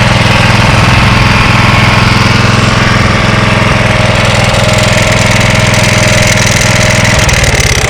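1985 Honda HR214 lawn mower engine idling steadily. Near the end the even running breaks up and turns irregular.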